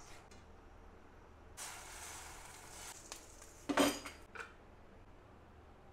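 Cookware handled on a gas stove: foil-wrapped butter rubbed over a nonstick kadai, a hiss lasting about a second and a half, then a sharp clank of pot and lid near four seconds in, with a lighter click just after.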